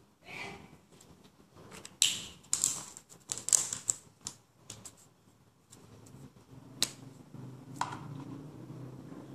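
Scratchy strokes and taps of a pink colouring pen on paper laid on a hard surface, with sharp clicks and rustles as the pen and paper are handled, busiest about two to four seconds in, then two single clicks near the end.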